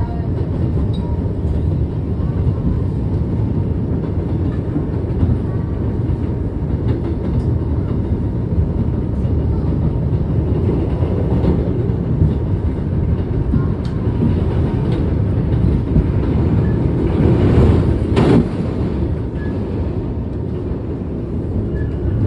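New York City Subway 1 train heard from inside the car as it runs on elevated track: a steady rumble of wheels on rail with occasional faint clicks. It swells briefly about three-quarters of the way through, then eases.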